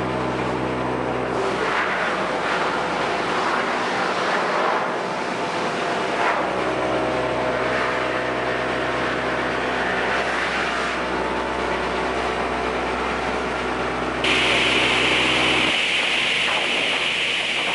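Sawmill machinery running: an engine's steady drone with noisy rasping over it. The drone fades for a few seconds soon after the start and comes back. A steady high hiss starts suddenly late on, and soon after the drone stops.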